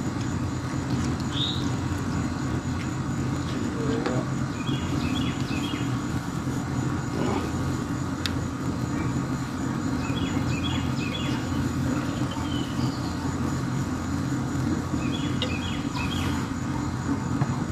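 Birds chirping in short clustered phrases that recur every five seconds or so, over a steady low mechanical hum.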